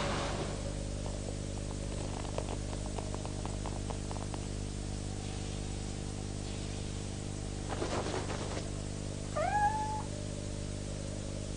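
Worn film soundtrack with a steady low hum and faint crackle, then about two-thirds of the way through a brief hiss followed by one short cartoon animal cry that rises in pitch and then holds.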